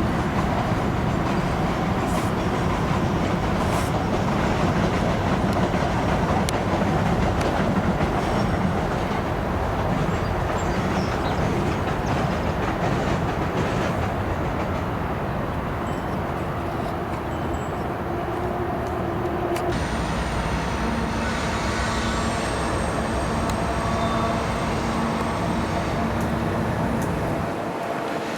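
A train rolling past with a steady rumble of wheels on rail; a faint high steady whine joins about two-thirds of the way in.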